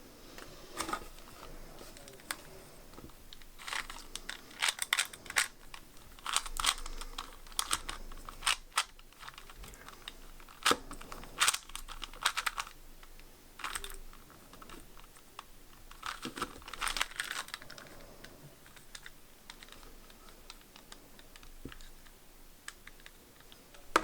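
2x2 Rubik's cube being scrambled by hand: quick bursts of plastic clicking as the layers are turned, busiest in the first half and sparser toward the end, with one sharp click at the very end.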